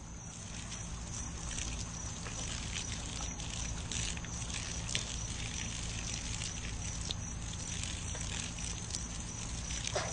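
Water spraying steadily from a garden hose and splattering on the grass.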